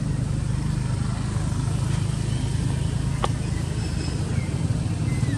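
A steady low motor rumble, with a few faint high chirps and a single sharp click about three seconds in.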